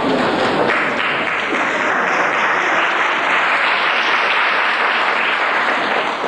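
Audience applauding, a dense, steady clapping that thickens about a second in.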